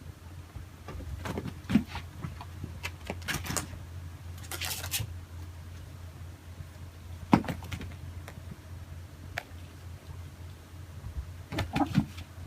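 Scattered light clicks and taps, with a brief scratchy rustle about four and a half seconds in, over a steady low hum.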